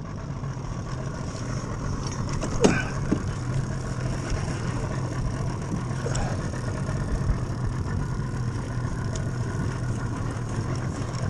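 Boat's outboard motor running steadily with a low hum. There is a sharp knock about two and a half seconds in and a fainter one around six seconds.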